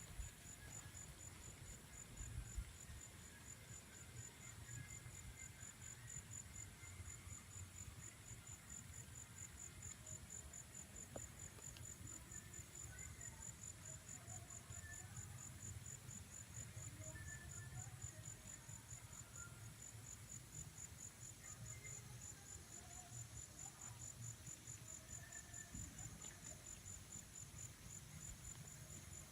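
Crickets chirping steadily: a high, even, pulsing chirp over a faint low rumble, with two brief thumps in the first few seconds.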